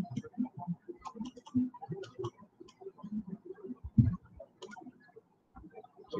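Irregular light clicks and taps from handwriting input on a computer as the working is erased and rewritten, with one louder knock about four seconds in.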